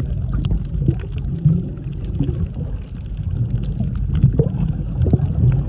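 Underwater water noise heard through a submerged camera: a steady low rumble and sloshing of moving water, with scattered small clicks and crackles.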